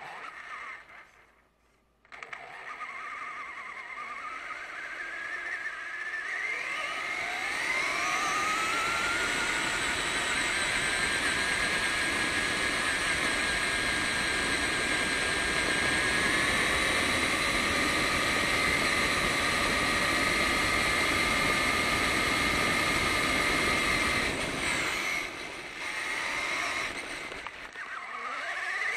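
RC truck's motor and drivetrain whining as it drives over rough dirt and gravel. The whine rises in pitch over several seconds as the truck speeds up, holds steady and high, then drops and wavers near the end as it slows.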